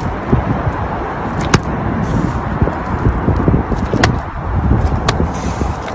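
Ab roller wheel rolling back and forth on rough asphalt, a steady gritty rumble, with a few sharp clicks.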